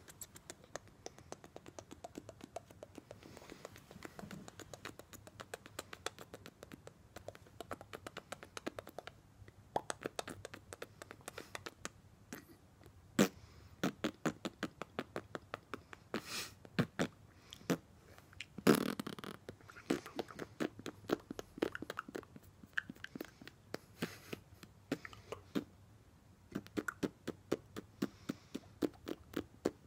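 A dog licking a person's face: a long run of quick licks, several a second, uneven in strength, with a few louder ones about halfway through.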